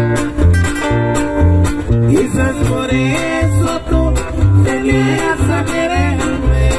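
Band music between sung lines: a nylon-string acoustic guitar picks a melody over an electric bass line, with percussion keeping a steady beat.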